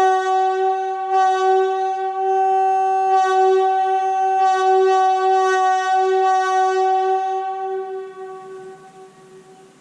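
Leslie S-2D locomotive air horn sounding one long held note, part of a 'wee honk' signal. The note holds steady with small swells, then dies away about eight seconds in.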